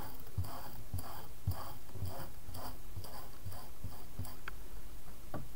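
A brush dabbing paint through a plastic stencil onto paper, soft taps about twice a second.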